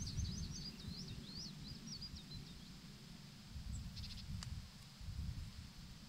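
A small songbird sings a quick run of high, evenly repeated notes that breaks into twittering and stops about two seconds in, over a steady low rumble. A few faint clicks come about four seconds in.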